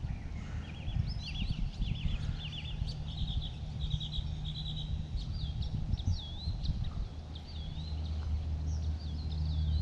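Songbirds singing: quick repeated chirps, then looping whistled notes, over a low steady rumble that grows louder near the end.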